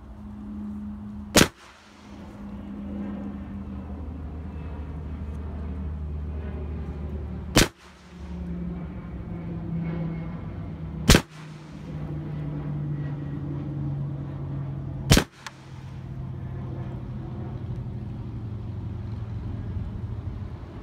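AR-15 rifle firing cast lead .223 bullets: four single shots, a few seconds apart, over a steady low hum.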